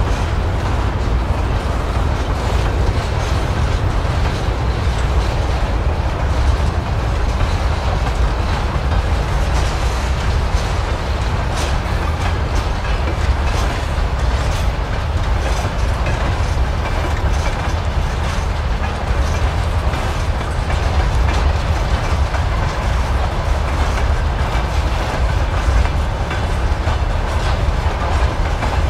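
Freight train of covered hopper wagons rolling past, steel wheels clicking over rail joints again and again above a steady rumble.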